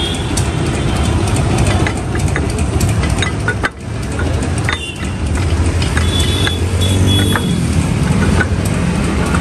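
Busy street traffic, with motor vehicle engines running, a dense mix of clatter, and a brief high-pitched tone about six seconds in.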